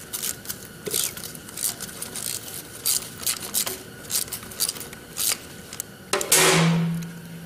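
Ratchet and socket clicking in short irregular runs as the engine oil drain bolt on a Honda CR500 crankcase is worked loose. About six seconds in comes a louder rushing sound with a low hum that fades over about a second.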